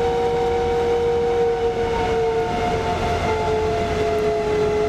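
Industrial debris vacuum running steadily while it sucks up sawdust through its hose: a constant whine over a rushing of air.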